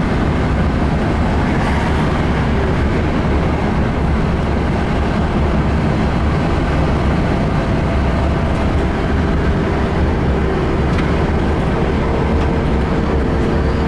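Steady low rumble of a car driving along a road, heard from the moving car, with no breaks or changes in level. A faint steady hum joins in during the last few seconds.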